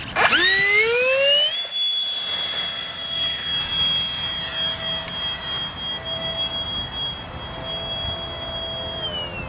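RC Habu jet's electric ducted fan spooling up at full throttle for takeoff: a rising whine that levels off within about a second and a half, then a steady high-pitched whine. The pitch drops a little near the end as the throttle is eased.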